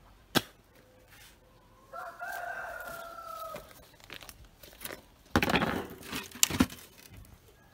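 A rooster crowing once, one long call held for about a second and a half and falling slightly at the end. A few seconds later comes a loud burst of rustling with a couple of knocks, and there is a single sharp click near the start.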